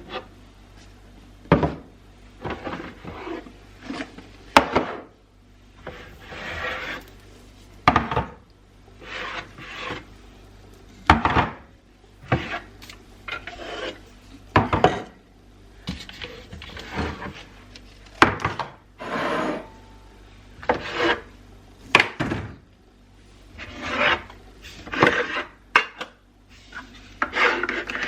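Household items being handled and set down during kitchen cleaning: irregular sharp knocks and clatters between bursts of rubbing and scraping.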